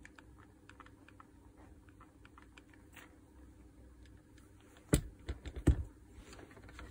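Faint clicks and light rattling of an angle grinder's armature and gear housing being handled, then a few sharper knocks about five seconds in as the parts are set down on the table.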